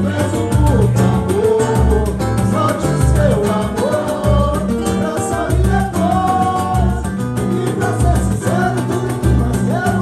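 Live samba band playing: voices singing a melody over cavaquinho and acoustic guitar, with pandeiro and hand drums keeping a steady low beat.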